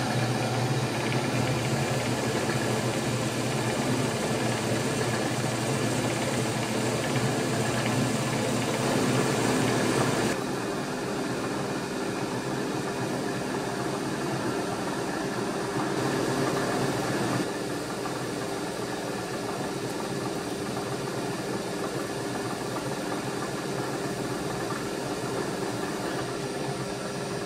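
Milling machine spindle running while a drill cuts mounting holes in a metal plate, with the steady hiss of a mist coolant spray. The sound drops and changes abruptly about ten seconds in and shifts again about seventeen seconds in.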